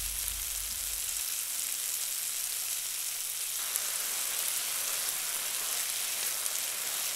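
Chilli chicken gravy boiling in a frying pan, a steady hiss, while it is stirred with a wooden spoon. The hiss grows a little fuller about halfway through.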